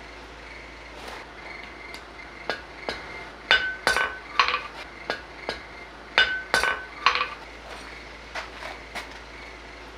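Blacksmith's hammer striking work on a steel anvil. A few light taps give way to about eight heavy blows over some four seconds, each heavy blow leaving a short metallic ring from the anvil, then light taps again.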